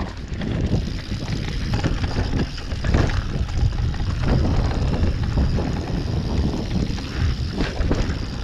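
Mountain bike riding a dirt trail, heard through an action camera: wind buffeting the microphone over tyre noise on the ground, with scattered knocks and rattles from the bike over bumps.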